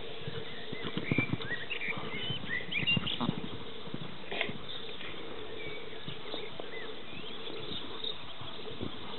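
Horse cantering on a sand arena: soft, dull hoofbeats, heaviest in the first few seconds. Short high chirps of birds sound over them.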